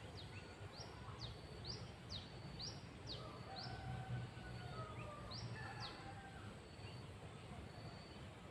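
Small bird chirping: a run of short, sharp, high chirps about two a second, stopping about six seconds in, over a faint high note that repeats regularly and a low steady background rumble.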